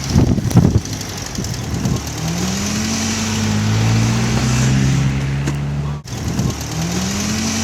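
Car engine revving hard while the car is stuck in snow, its driven wheels spinning. The revs climb at about two seconds and hold high, cut out briefly near six seconds, then climb again. Wind buffets the microphone loudly in the first second.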